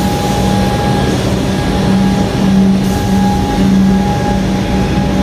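Electric suburban train running past a station platform: a steady electrical hum over the rumble of wheels on the rails.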